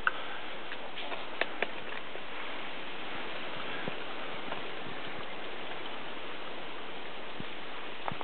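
Steady outdoor background hiss with a few faint taps, about a second in and again near the end, from footsteps on a stone path as the camera is carried along.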